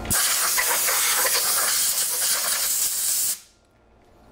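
Compressed-air blow gun hissing steadily for about three seconds as it clears machining chips from the vise and test block, then cutting off suddenly.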